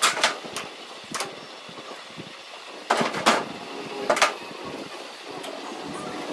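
Irregular sharp metal knocks and clanks from tools and parts being handled in repair work on a brake adjuster, in clusters near the start, around three seconds in and around four seconds in.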